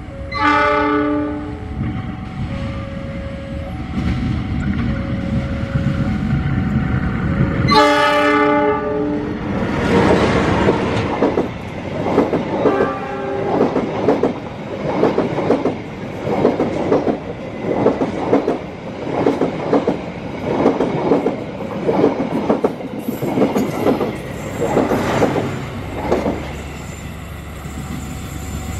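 A passenger train's diesel locomotive sounds its horn, a short blast near the start and a longer, louder one about eight seconds in, over the rumble of its running engine. After that the coaches pass with a steady rhythmic clickety-clack of wheels over rail joints, which fades near the end.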